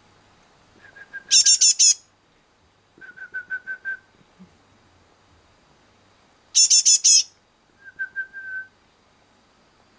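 Fledgling great tit calling: two loud bursts of four or five rapid, high, squeaky notes, about five seconds apart. Between them come softer rows of short notes on one lower, steady pitch.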